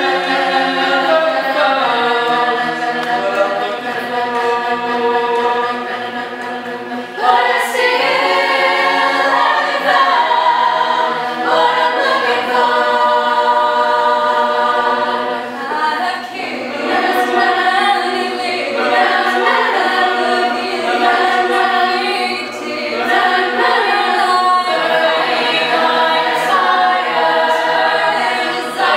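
Mixed-voice high school choir singing a cappella, growing louder about seven seconds in.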